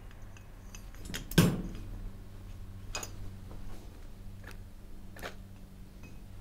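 Scattered sharp metal clicks and knocks from a Snowdog bogie wheel axle and its bearing hub being handled while a snap ring is fitted. The loudest click comes about a second and a half in and three lighter ones follow, over a low steady hum.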